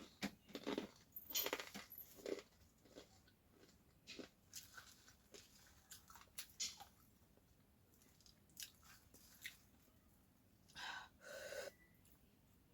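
Faint crunchy chewing of a very spicy namkeen snack: irregular crunches, densest in the first couple of seconds, then sparser. Near the end come two longer hissing sounds.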